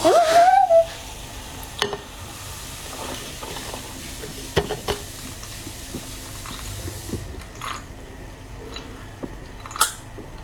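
Close-miked drinking of orange juice: a loud slurp with a rising pitch at the start, then a steady liquid hiss broken by a few sharp clicks and small gulps.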